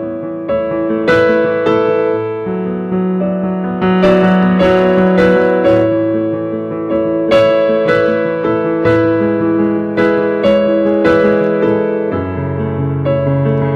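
Slow instrumental piano or keyboard music, sustained chords over held bass notes, changing every second or two.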